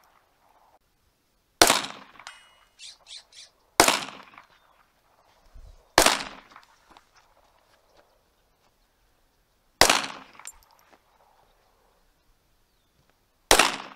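Five single shots from a 1911 pistol fitted with a GSG .22 LR conversion kit, fired slowly, two to four seconds apart. Each is a sharp crack that trails off briefly. A few light clinks follow the first shot.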